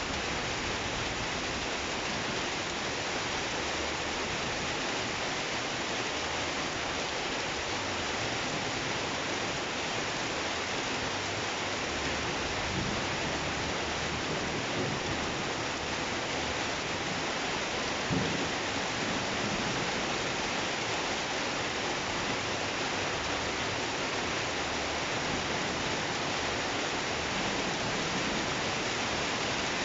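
Heavy rain pouring steadily during a thunderstorm, with a brief sharper sound about two-thirds of the way through.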